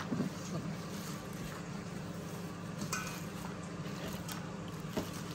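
A gloved hand mashing and mixing fish bharta in a stainless steel bowl: soft squishing with a few light clinks against the bowl, over a steady low hum.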